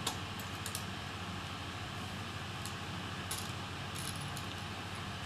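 A few light, scattered clicks of small metal laptop screws being handled and set down, over a steady background hum.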